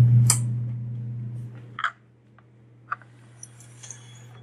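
A steady low electrical hum from lab equipment, fading out about two seconds in, with a few light clicks and clinks of plastic and glass labware being handled.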